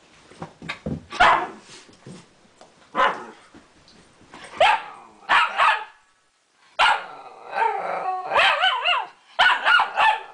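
Dog barking in play: scattered sharp barks, then after a brief gap a quicker run of high-pitched yips and barks.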